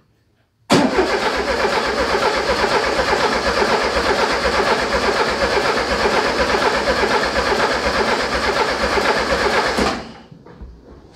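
Starter cranking a 1956 VW Beetle's air-cooled flat-four engine during a compression test, in a steady even rhythm. It starts about a second in and stops abruptly after about nine seconds without the engine catching. The tested cylinder reads 120 psi: good compression.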